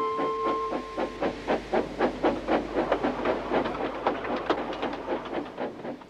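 Steam locomotive chuffing steadily along, about four puffs a second, with the hiss of steam in each puff; a held musical tone dies away about a second in.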